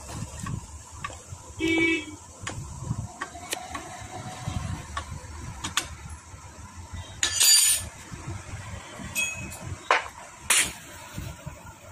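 Hand tools and small metal engine parts clicking and clinking as a Bajaj Pulsar 150 engine is assembled, with a louder rattle about seven and a half seconds in and two sharp knocks near the end. A short toot sounds about two seconds in.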